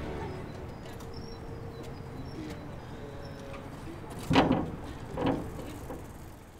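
Background music fading out into quiet outdoor ambience with a few faint bird chirps, then two loud metallic clanks about a second apart as the wrought-iron gates swing shut and latch.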